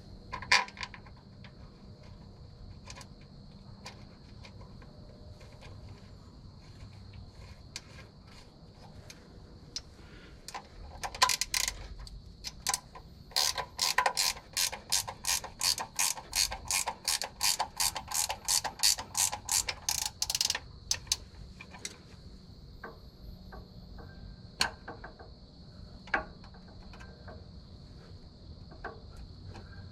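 Hand ratchet wrench clicking as bolts are run in on the engine: a quick even run of clicks, about three or four a second, for some seven seconds in the middle, with scattered clicks and tool handling around it.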